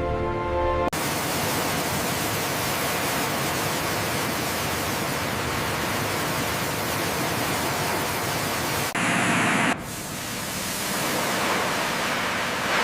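Music cuts off about a second in, giving way to a loud, steady rushing noise. The noise shifts abruptly to a brief harsher burst about nine seconds in, then carries on.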